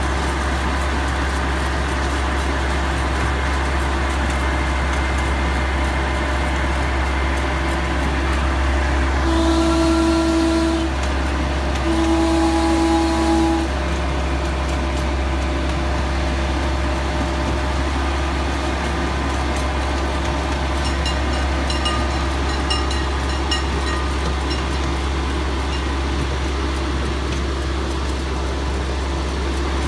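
Miniature ride-on train running steadily with a low engine hum. About nine seconds in, its horn sounds two blasts, each about a second and a half long.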